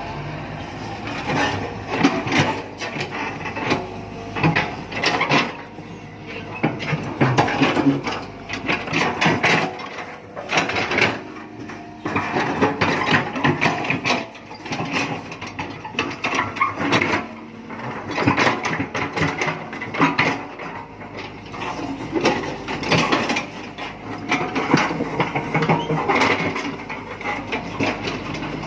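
Earth-moving machine at work: irregular clanking, scraping and knocking in uneven bursts over the engine running.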